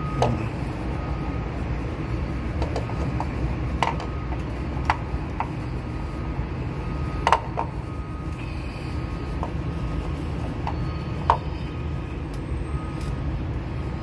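Light plastic clicks and taps as a car's ignition coil and its wiring connector are handled and wiped with a cloth, a few sharp clicks scattered over a steady low rumble.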